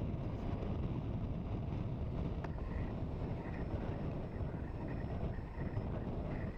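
Steady wind buffeting the microphone at an exposed coast, a constant low rumble without breaks.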